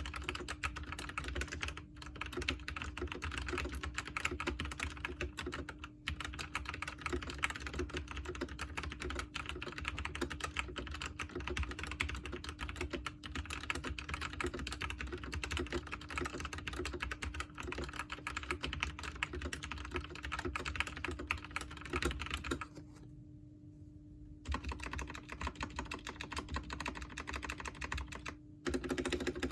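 Continuous fast typing on an Aula F-2067 mechanical keyboard fitted with lubed, broken-in Outemu brown switches, PE foam under the PCB and lubed, band-aid-modded stock stabilizers. The keystrokes come in a dense, unbroken stream, with one pause of about a second and a half roughly three-quarters of the way through.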